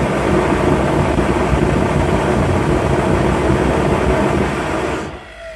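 Homemade jet engine, its centrifugal compressor driven by an electric motor, running with a loud, steady roar and low rumble, dying away sharply near the end.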